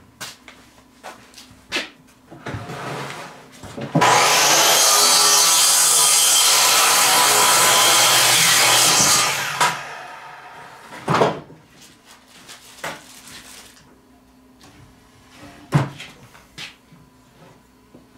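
Bench-mounted power saw starting suddenly about four seconds in and running through a cut in a wooden board for about five seconds, then winding down. A few sharp wooden knocks follow as the board is handled.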